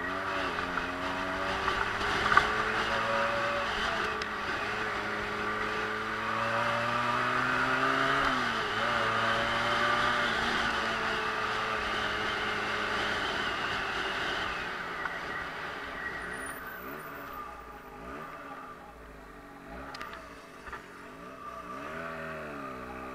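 Motorcycle engine running while riding, its note rising and falling through changes in throttle, with wind rushing over the microphone. After about fifteen seconds it quietens, and near the end the engine note drops as the bike slows.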